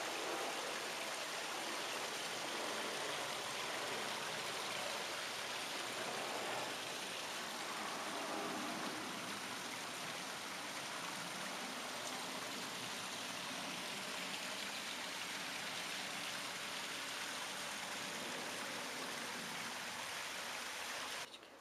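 Steady rushing noise of running water, even and unbroken, cutting off abruptly just before the end.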